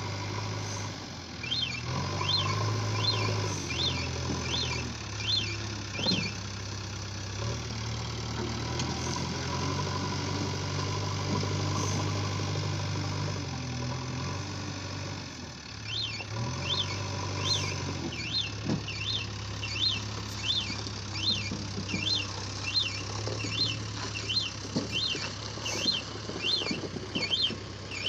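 JCB 3DX backhoe loader's diesel engine running under changing load as the front bucket pushes soil, its note stepping up and down, with occasional knocks. A repeated high chirp, about one and a half a second, comes in about two seconds in, stops around six seconds, and returns from about sixteen seconds on.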